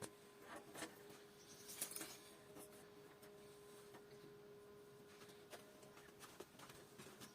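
Near silence: a faint steady hum with a few scattered light clicks.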